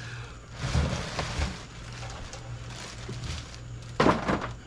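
Handling noise as a heavy portable generator is lifted out of its cardboard box: rustling and scraping with dull knocks about a second in, and a short, louder scrape or knock about four seconds in.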